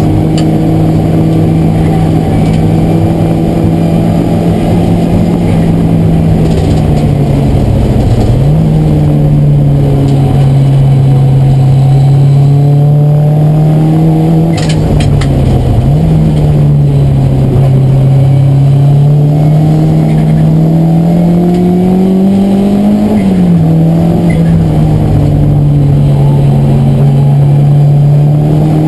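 Race car's engine heard from inside the cabin on a circuit, its note climbing under throttle and sagging off it, dropping sharply at gear changes, the clearest near the end after a long climb. A few brief clicks about halfway.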